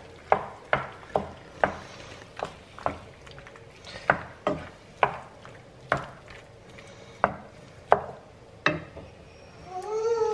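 Wooden spoon stirring rigatoni in a frying pan, knocking sharply against the pan about every half second.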